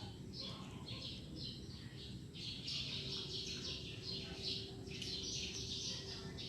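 Small birds chirping in quick, repeated high notes, several a second, over a faint steady hum.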